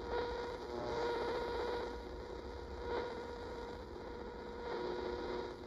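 GE AM/FM stereo clock radio being tuned across the FM band between stations: hiss and hum from its speaker, with faint tones of station audio fading in and out as the dial moves.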